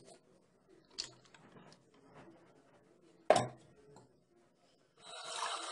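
Toothbrush scrubbing faintly at teeth, with a sharp knock a little over three seconds in. Near the end a steady rush of running tap water starts, for rinsing.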